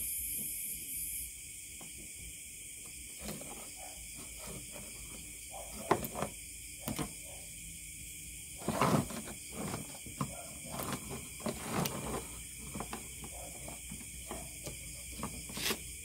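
Soldering tools and plastic mouse parts being handled on a wooden workbench: scattered light clicks and knocks, the loudest cluster about halfway through, over a steady faint hiss.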